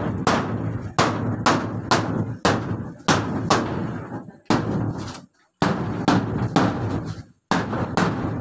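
Hammer driving nails into a wooden wall board overhead, in steady blows about two a second with a couple of short pauses. Each blow rings on through the wooden walls.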